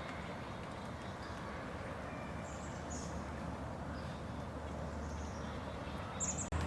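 Outdoor ambience: a steady low rumble with a few faint, short, high bird chirps scattered through and a brighter chirp near the end.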